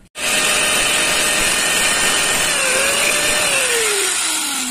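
Small electric power tool running while a small part is trimmed smooth, its motor pitch dipping slightly midway, then falling steadily from about three and a half seconds in as the motor winds down.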